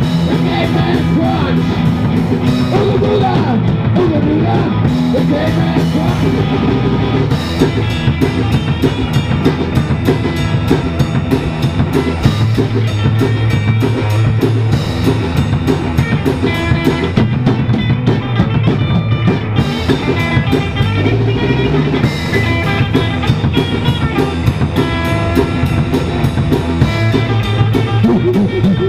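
Rock band recording playing: electric guitar and drum kit with a steady, driving beat.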